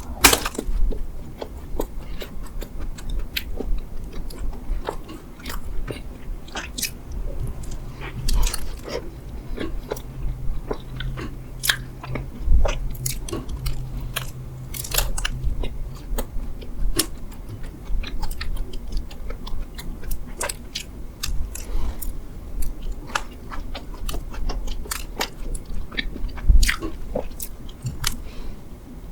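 Close-miked mukbang eating sounds: repeated biting and chewing of mammoth bread, with many small crunchy crackles from its crumbly crust.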